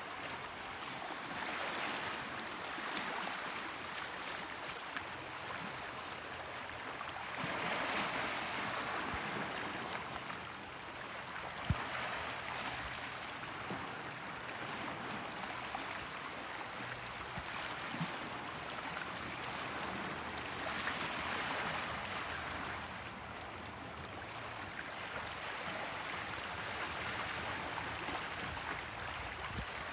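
Gentle Mediterranean sea waves washing onto the shore, swelling and fading every few seconds.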